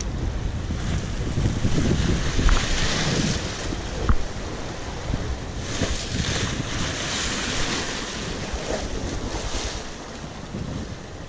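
Sea surf washing ashore, swelling into hissing rushes of foam every few seconds, under the rumble of wind buffeting the microphone. A short knock comes about four seconds in.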